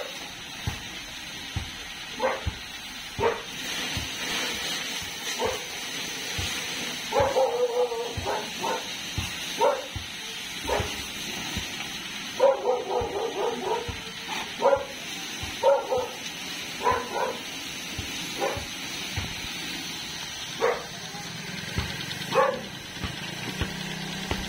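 A dog barking on and off, in single barks and two quick runs of barks, over the steady hiss of a pressure washer spraying water.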